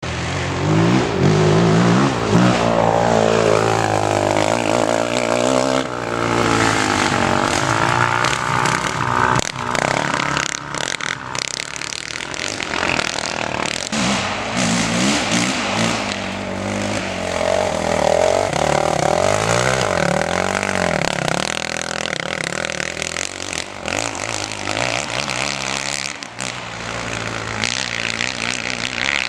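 Racing quad (ATV) engines revving hard, pitch repeatedly rising and falling with the throttle as the quads pass.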